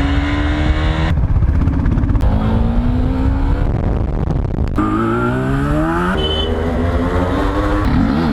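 Inline-four superbike engines revving hard, in several short clips cut one after another: the pitch climbs steadily on some revs and drops back on others, with a sudden change of sound every second or few.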